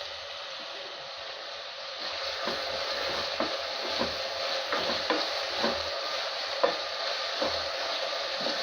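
Onions and tomato frying in hot oil in a pan with a steady sizzle. From about two seconds in, a spatula stirs and scrapes against the pan in short strokes every half second or so.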